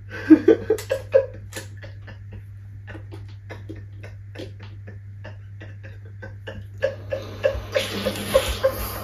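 A young man laughing: a few bursts at the start, then scattered soft clicks, building near the end into a run of rhythmic, breathy giggles.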